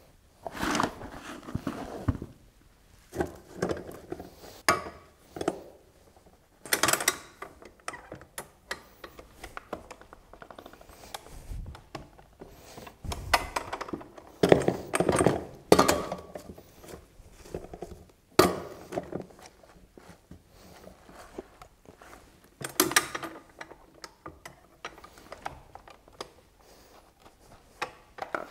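A hand-lever paper briquette press in a plastic tub being loaded by hand with wet paper and wood-shaving pulp, then levered shut: irregular clunks, knocks and handling noises of the metal press and the wet mass, some of them sharp.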